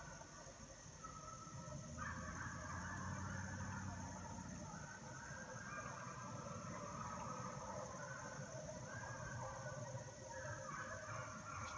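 A pack of hunting hounds baying as they run a trail, their long calls overlapping one another, with a steady high-pitched drone underneath.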